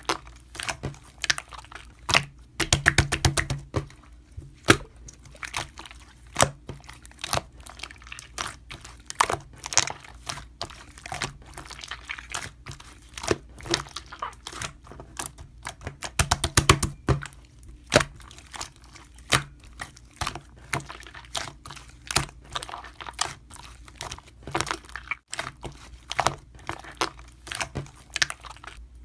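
Slime being squeezed and poked, giving a steady string of sharp clicks and pops, with two quick rattling runs of clicks, about three seconds in and again about halfway through.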